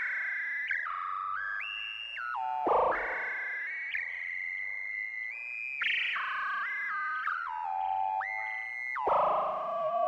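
Background electronic synthesizer music: sustained notes that step up and down in pitch, with occasional sliding glides.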